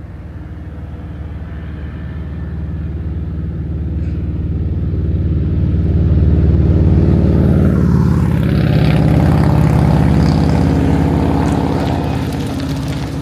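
An engine passing by, a steady low drone that grows louder to a peak about halfway through and then slowly fades.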